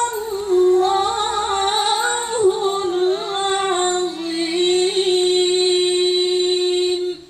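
A woman's voice reciting the Quran in melodic tilawah style: ornamented, wavering melismas that settle into one long held note, which stops right at the end.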